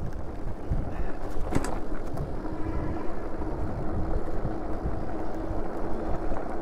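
Riding a Super73 electric bike over a bumpy dirt trail: wind rushing over the microphone, with a low rumble and frequent knocks from the tyres on the rough ground. A faint steady hum comes in about two and a half seconds in.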